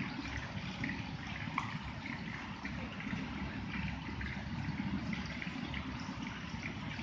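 Pork spare ribs deep-frying in a wok of hot oil, a steady sizzle with scattered sharp crackles, over the steady low rumble of a commercial gas wok burner, while the range's water tap runs into a pot.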